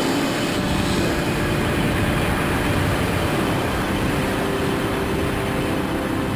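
Steady rushing wind noise of a high-speed free fall, picked up by the camera mounted on the jumper's pressure suit. Faint low steady tones join about four seconds in.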